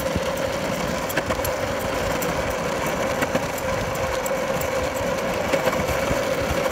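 Longboard wheels rolling fast downhill on an asphalt road: a steady rumble with a constant hum and scattered small clicks from the road surface.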